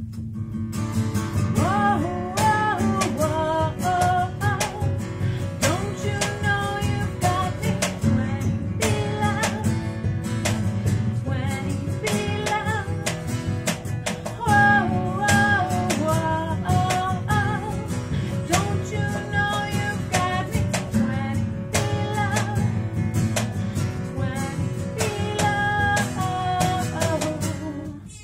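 Two acoustic guitars strummed and picked together, with a woman singing a melody over them.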